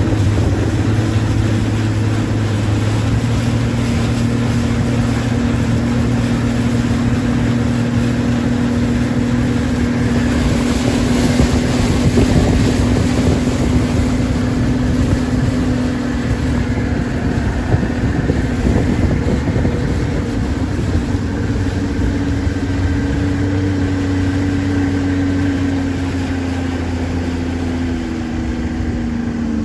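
Bass boat's outboard motor running steadily at speed across a lake, with its pitch shifting slightly near the end. Wind rushes over the microphone throughout.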